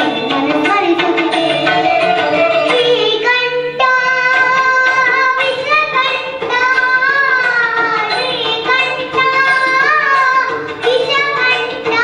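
A young girl sings a melodic Indian song through a handheld microphone, holding and bending long notes, over percussion accompaniment.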